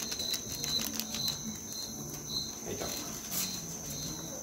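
Crickets chirping: a steady high trill with a short chirp repeating about twice a second. A few faint clicks can be heard over it.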